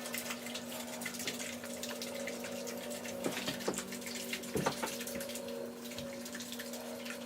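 A So Slime shaker bottle holding water and slime mix being shaken continuously, the liquid sloshing inside it with a steady low hum underneath.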